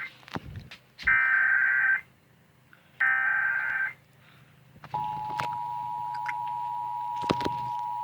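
Emergency Alert System tones from a TV's speaker. First come two digital SAME header bursts, each about a second long. Then, about five seconds in, the steady two-tone EAS attention signal starts, announcing a tornado warning. A short knock sounds over it near the end.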